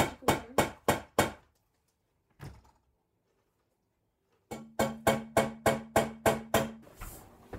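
Background music: a plucked-string instrument playing short, evenly spaced notes about three a second. The notes stop for a few seconds in the middle, then pick up again over a held low note.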